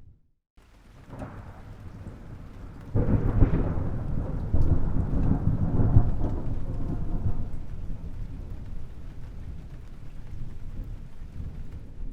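Thunder: after a moment of silence, a low rumble builds, then a loud peal breaks suddenly about three seconds in and rolls for several seconds before dying back to a lower, steady rumble.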